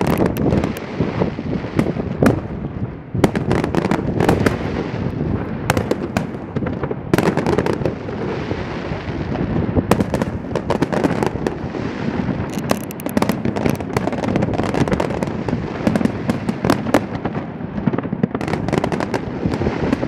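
Fireworks going off continuously: a dense run of sharp bangs and crackles over a steady rumble.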